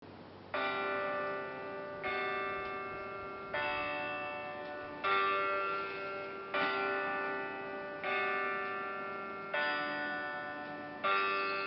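Music: a slow run of chords struck about every second and a half, each fading before the next.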